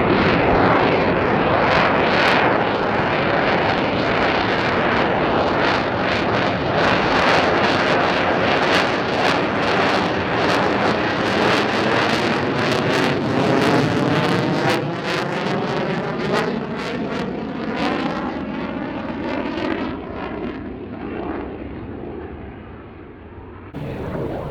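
Lockheed Martin F-35A Lightning II's single Pratt & Whitney F135 turbofan: a loud jet roar with a sweeping, phasing quality that slowly fades as the aircraft flies away, cut off abruptly near the end.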